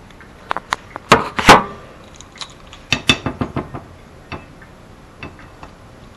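Kitchen handling clatter: a series of sharp clicks and knocks as a butter container and a small utensil are handled and a dab of butter is put into a frying pan. The loudest knocks come about a second and a half in, then a quick run of lighter clicks around three seconds in.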